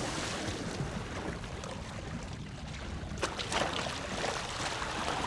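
Steady wind and water noise on an open boat at sea, with a few sharp knocks or splashes about three seconds in.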